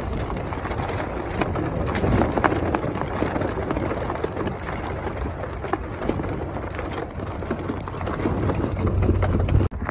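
Choppy water splashing and slapping against a small sailing dinghy's hull, a steady crackly spatter, with wind rumbling on the microphone underneath.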